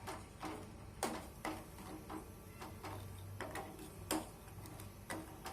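A spoon clinking repeatedly against the cooking pot while sugar is stirred into the milk and cooked semolina for payasam, about two short clinks a second, unevenly spaced, over a low hum.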